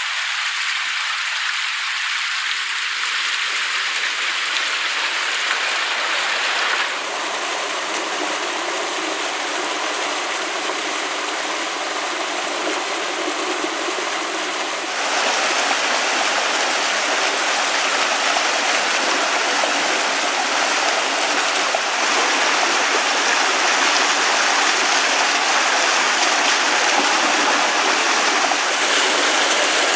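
Steady rush of a shallow stream spilling over rock ledges in small cascades and churning in pools. It steps louder about halfway through.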